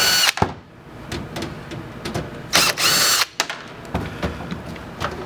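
Cordless drill-driver with a Phillips bit whirring in two short bursts, one just at the start and another about three seconds in, backing out the screws that hold a PC power supply. Small clicks and knocks come in between.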